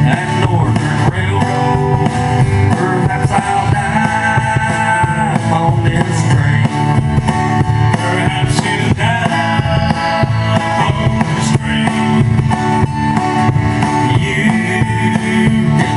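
A live band playing: two acoustic guitars strummed over an upright bass and a drum kit, with no break.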